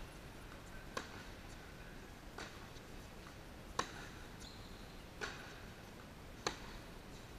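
Tennis ball being hit back and forth in a baseline rally: five sharp racket strikes about a second and a half apart, alternately louder and fainter as the near and far player hit, with a brief sneaker squeak on the court.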